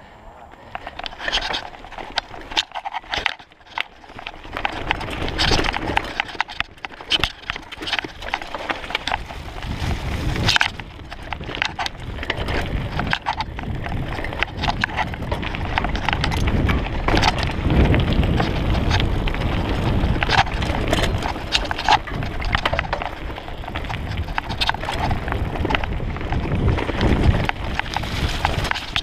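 Mountain bike rattling and clattering down a rocky, rooty trail, with frequent sharp knocks as the wheels hit rocks and roots. A low rumble of wind and tyre noise on the camera microphone builds from about twelve seconds in as the bike speeds up.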